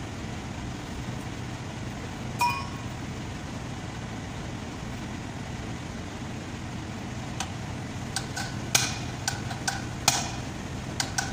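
Hammer striking a chisel and vise-grip pliers set in a truck's front wheel hub to drive out the wheel bearing cup: a single metallic clink about two seconds in, then a quick run of sharp, ringing metal-on-metal strikes through the last four seconds. A steady low hum runs underneath.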